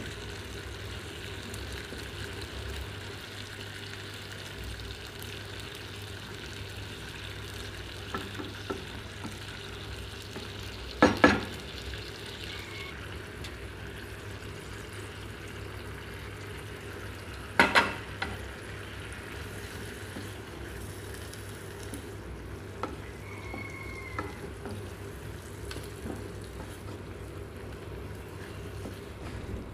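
Shrimp and mushrooms sizzling steadily in sauce in a frying pan while a wooden spatula stirs them. Two sharp knocks stand out, about 11 and 18 seconds in.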